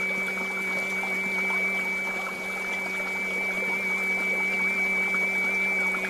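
Tuvan throat singing: one steady low drone with a high, whistle-like overtone held above it, wavering slightly, imitating the sound of water.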